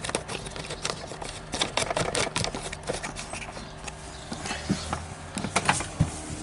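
Irregular clicks and light knocks of objects being handled, over a low steady hum.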